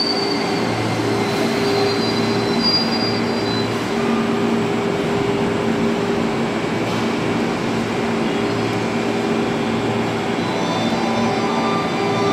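JR 205 series electric train running along an underground station platform, with a steady hum and rumble from the train. A high wheel squeal fades out in the first few seconds, and several steady tones come in near the end.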